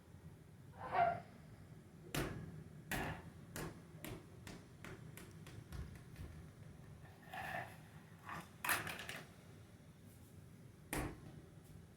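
A ball being thrown and dribbled on a hard indoor floor: a string of separate thumps at uneven spacing, with a run of quick bounces a few seconds in and the loudest bounces a little past the middle.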